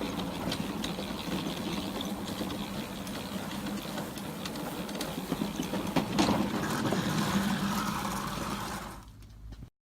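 A machine running steadily, with a hum and rattling clicks, dropping away about nine seconds in.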